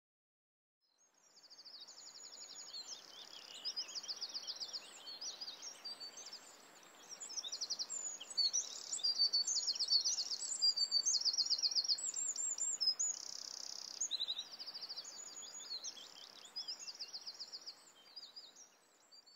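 Dawn chorus of several songbirds: high, rapid trills and chirping phrases overlapping one another over a faint steady hiss, fading in about a second in.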